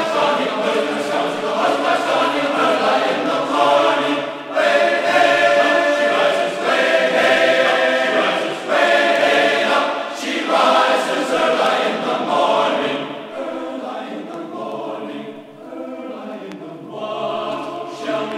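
Background music: a choir singing held chords. It grows quieter about two-thirds of the way through, then swells again near the end.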